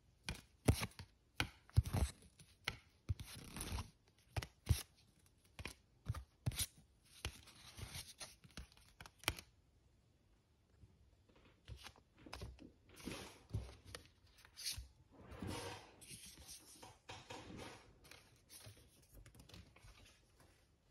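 Trading cards and their packaging being handled on a table: a quick run of sharp taps and scraping rustles, a short pause about halfway, then more rustling.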